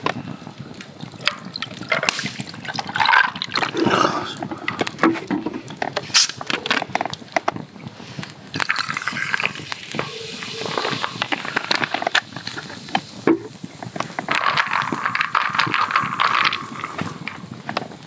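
Ice cubes clinking in a tall glass, then liquid poured over the ice in two long pours as a lemon sour is topped up with soda water.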